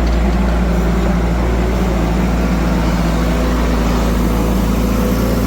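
Heavy machine's engine running steadily at an even speed, a constant low hum with no revving.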